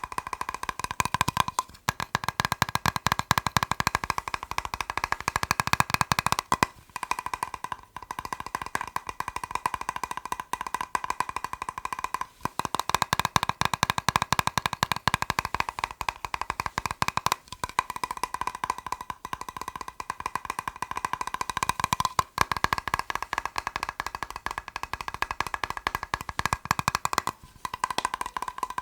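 Fast tapping on a plastic box: a dense run of quick taps that ring with the box's tone, stopping briefly every few seconds.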